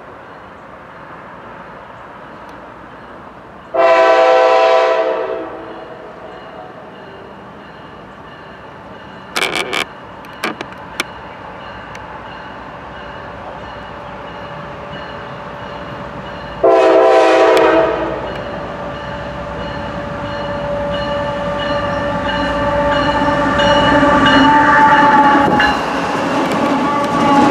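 Nathan K5LA five-chime horn on a CSX GE ET44AH locomotive sounding two blasts: one about four seconds in, lasting about a second and a half, and a shorter one about seventeen seconds in. A few sharp clicks come between them. After the second blast the locomotives' engines and the train grow steadily louder as they come up and pass close by near the end.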